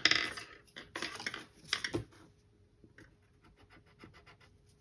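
Colouring in on a paper savings chart: scratchy strokes for about two seconds, then a quick run of fainter back-and-forth strokes, several a second, as one seed shape is filled in.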